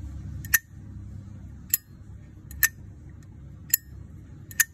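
A Zippo Armor windproof lighter's thick-walled case clicking open and shut: five sharp metallic clicks with a brief bright ring, about a second apart.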